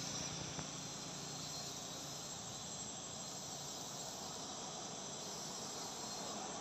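Steady outdoor insect chorus: an even, continuous hiss-like drone of crickets or cicadas.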